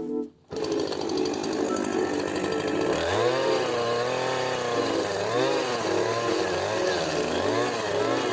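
Chainsaw running, its engine pitch rising and falling over and over from about three seconds in as the saw revs and bogs in the wood.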